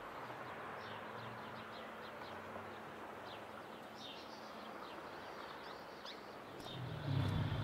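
Birds chirping in short repeated calls over a steady outdoor background hiss. A low rumble comes in near the end.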